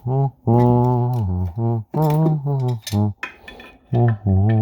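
A man's low voice in drawn-out, wordless tones, with a few light metal clicks among them.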